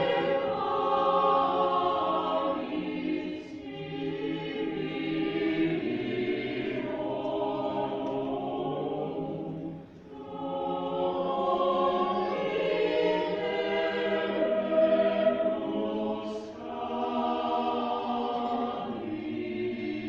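A mixed choir singing in sustained chords, pausing briefly between phrases about halfway through.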